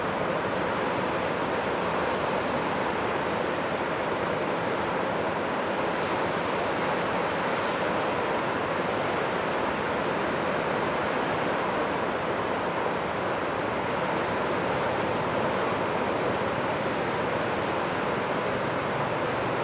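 Steady rush of Lake Michigan surf and wind, an even noise with no breaks or distinct events.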